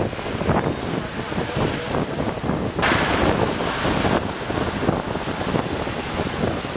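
Road noise from a vehicle driving on a wet street: a steady rumble with wind noise on the microphone. A brief high squeal comes about a second in, and a loud hiss near the three-second mark lasts just over a second.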